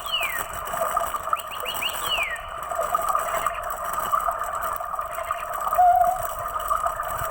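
Battery-powered toy bird chirping in its cage: a run of quick, high, falling tweets at the start and again about two seconds in, over a steady droning tone.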